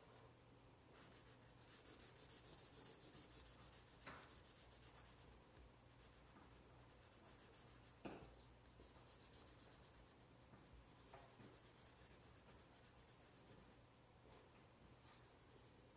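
Felt-tip marker scribbling on paper as an area is coloured in: faint, rapid back-and-forth strokes in two spells, with a couple of light knocks in between.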